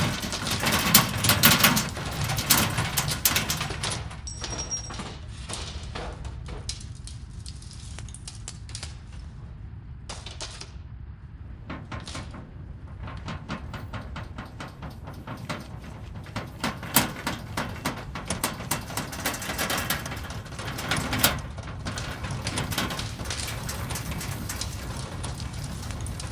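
Earthquake rumbling: a steady low rumble under dense rattling and crackling. It is strongest in the first few seconds, thins out in the middle and builds again later.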